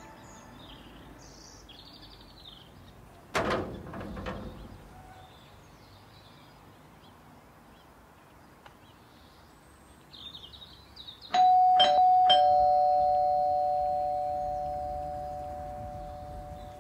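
A sharp knock about three seconds in, followed by two lighter ones. Later a two-tone ding-dong doorbell chime, high then low, rings out and fades slowly.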